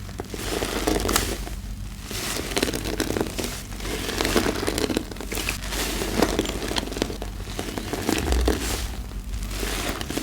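Car sponge squeezed and released over and over in thick laundry-soap paste. The suds squelch with fine crackling, in repeated swells a second or so long with short pauses between.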